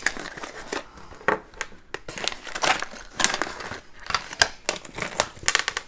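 Crinkling and rustling of a diamond painting tool kit pouch as it is unrolled and handled, in irregular crackles.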